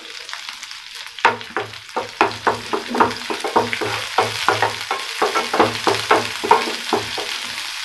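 Chopped garlic sizzling in melted butter in a nonstick frying pan. From about a second in, a wooden spatula stirs and scrapes it in quick repeated strokes, about three a second, stopping near the end.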